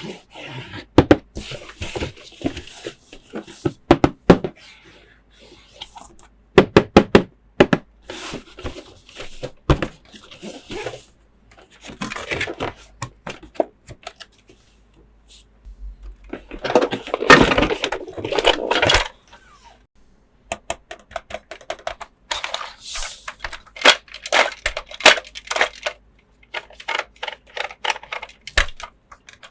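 Close-up handling of a plastic toy playset and its packaging: irregular clicks, taps and light knocks of plastic parts. A longer rustling stretch comes about 17 seconds in, and quick runs of clicking follow near the end.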